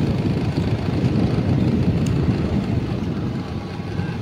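Steady low rumble of a two-wheeler riding along a street, its engine and the wind on the microphone mixed together.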